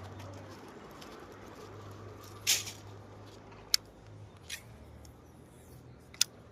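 A short splash on the water about two and a half seconds in, then three sharp clicks spread over the next few seconds: a snakehead striking at the frog bait.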